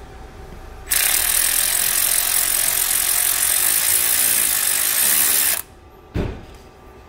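Cordless electric ratchet running steadily for about four and a half seconds, spinning an 8 mm nut off the starter. It stops suddenly and is followed by a short clunk.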